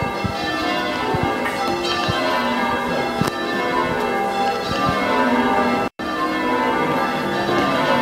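Ring of six church bells being rung in changes, a continuous stream of overlapping bell strokes. The sound cuts out for an instant about six seconds in.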